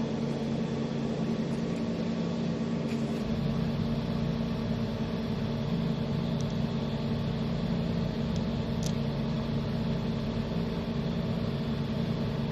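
Steady machine hum with fan noise from a handheld fiber laser welding machine running; a deeper rumble joins about three seconds in, with a few faint ticks.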